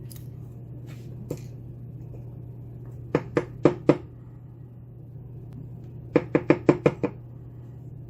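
Two runs of sharp, quick knocks on a padlock, four and then six strokes: the lock is being rapped to shake a stuck pin and spring out of its chamber.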